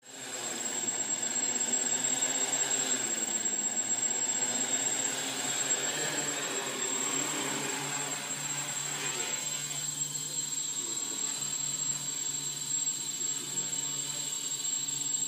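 Quadcopter's electric motors and propellers whirring steadily as it hovers in place, a little softer from about eight seconds in.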